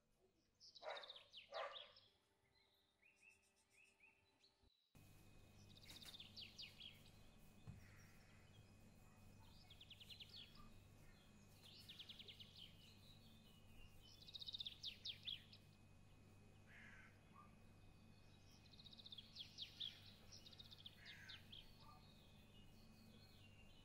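Faint birdsong: short, high chirping trills repeated every couple of seconds over a low steady hum, with two louder short calls about a second in.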